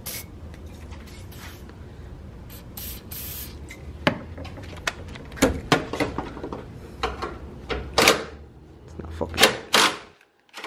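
Irregular clicks, knocks and short scrapes of hand tools and plastic trim being worked on while a car's front bumper and headlight are taken off, growing busier about halfway through. Under them runs a low steady hum that stops just before the end.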